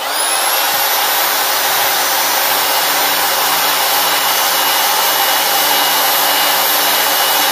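Evolution 400 W power file (a narrow belt file sander) switched on and running steadily at full speed with a high whine, cleaning up a weld on steel.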